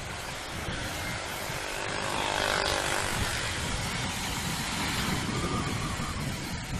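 Traffic and wind noise on a moving motorcycle, with another vehicle swelling past about two to three seconds in.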